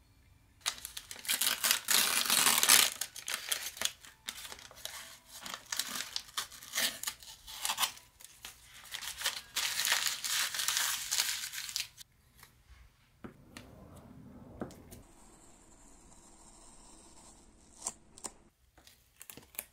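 Crumpled packing paper and masking tape being torn and pulled off a painted plastic model car body, crinkling and tearing irregularly for about eleven seconds. After that it goes much quieter, with a faint hiss and a few small clicks near the end.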